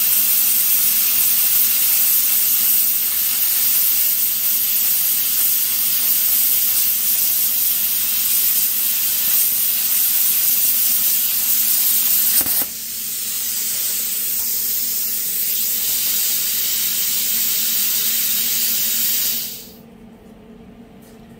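Lotos LTP8000 plasma cutter cutting steel plate at 20 amps: a loud, steady hiss from the torch's arc and air. About twelve seconds in it clicks and thins to a lighter air hiss, which cuts off suddenly a couple of seconds before the end.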